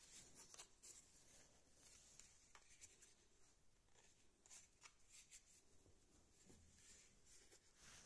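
Near silence, with faint scattered crackles and rustles from a hand handling a dried beef-ear dog chew.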